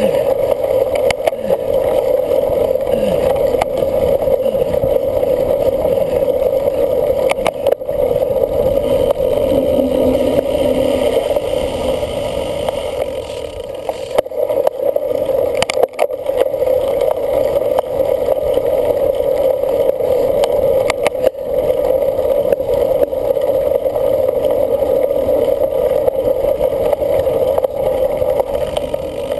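Cyclocross bike in motion: a steady rush of wind and tyre noise, crossed now and then by short clicks and rattles from the bike.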